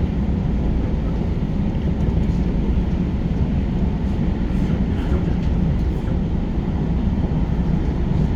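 JR New Rapid electric commuter train running steadily between stations, heard from inside the carriage: a continuous low rumble of wheels on rail with a few faint clicks.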